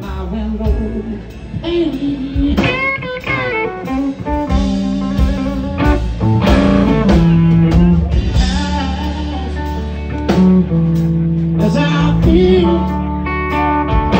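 Live blues band playing: a thinline Telecaster-style electric guitar takes the lead with bent and wavering notes over bass and drums.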